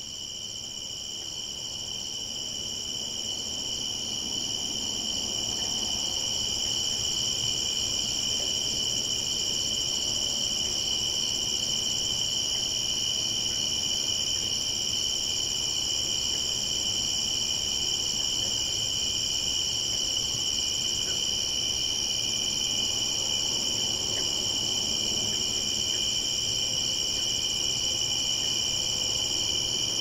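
A dense chorus of many insects calling together, a continuous high-pitched shrill in two steady pitches. It fades in over the first few seconds, then holds steady.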